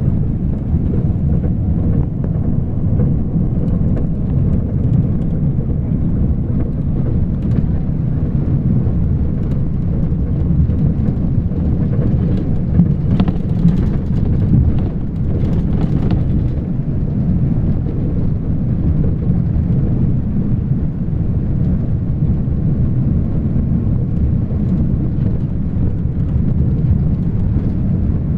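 Steady low rumble of a vehicle driving along a road, tyre and wind noise heard from inside it by the side window.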